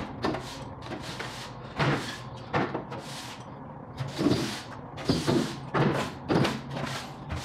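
Trailer floor being swept with a broom: a run of short scraping strokes, irregular, roughly one a second.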